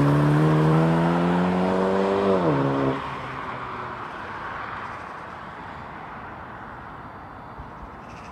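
Mini Cooper S's 192 bhp turbocharged four-cylinder engine pulling hard as the car accelerates away, its note climbing through a gear and then dropping about two and a half seconds in. About three seconds in the engine note cuts off sharply, leaving a fading hiss of the car's noise as it draws away.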